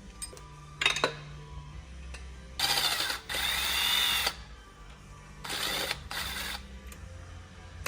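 A handheld power tool, such as a drill or air ratchet, run in short bursts. A couple of clicks come about a second in, then two longer runs from about two and a half seconds in, the second with a whine that sweeps up and down, then two brief runs about a second later.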